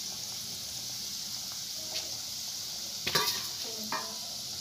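Kachori deep-frying in hot oil in an aluminium kadai: a steady sizzle, with a few sharp metal clinks of the perforated slotted spoon against the pan, the loudest about three seconds in.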